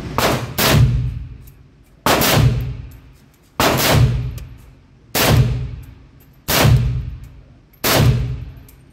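AK pistol with a muzzle brake firing seven shots, each blast ringing and dying away in the range. Two shots come in quick succession at the start, then single shots follow about every second and a half.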